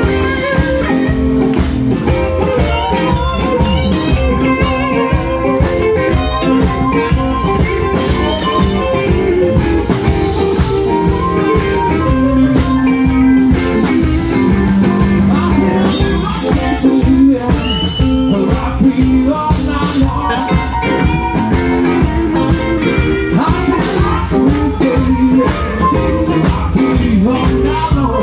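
Live blues band playing a blues number: Telecaster-style electric guitars and a drum kit with bass, a harmonica held to the vocal mic and a keyboard.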